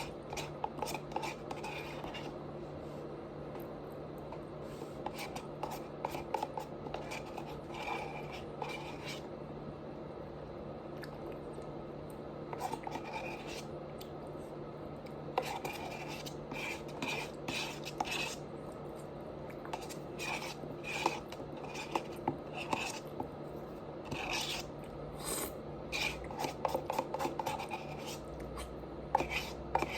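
Close-miked eating: chewing with short, irregular mouth clicks and smacks, busier in the second half, over a steady low hum.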